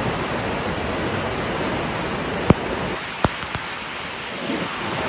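Muddy floodwater rushing through a garden, a steady wash of water noise, with two or three sharp clicks about halfway through.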